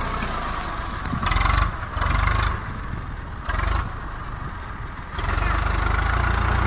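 Swaraj 744 FE tractor's three-cylinder diesel engine straining under load while the tractor is stuck in mud. It surges louder several times in the first four seconds, then runs steadily and louder from about five seconds in.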